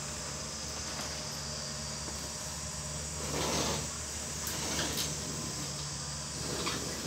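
Boxes and packaging handled on a shelf: a brief rustle about halfway through, then a few light knocks, over a steady low hum of room noise.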